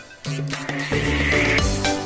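Background music with a steady beat, breaking off briefly at the start. A bright, wavering sound sits on top of it for about a second in the middle.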